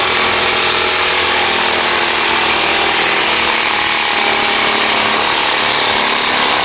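Reciprocating saw (Sawzall) running steadily as its blade cuts through a hammered-in anchor that holds a pool pump's base down.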